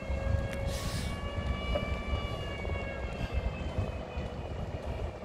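Heavy truck engine running low and steady while it slowly hauls a loaded low-loader trailer. A short hiss of air about a second in, and a faint high squeal that falls slightly in pitch through the middle.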